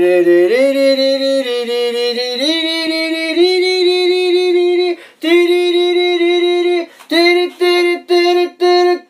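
A single voice singing long held notes that step up in pitch, breaking off once, then turning into short repeated notes about two a second near the end.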